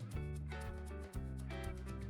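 Background music with a steady beat and short repeated melodic notes.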